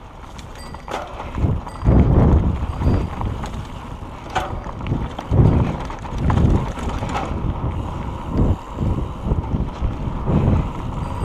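Wind buffeting the microphone in irregular low gusts, with knocks and rattles from a mountain bike riding over a rough dirt trail.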